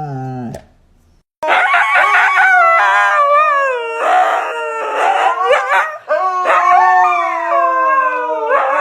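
A dog howling in long, warbling calls that bend up and down in pitch, starting about a second and a half in.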